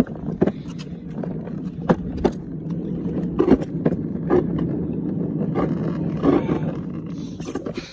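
Child's ride-on toy police car rolling over concrete: a steady rumble from its wheels and drive, broken by scattered sharp knocks and clatters.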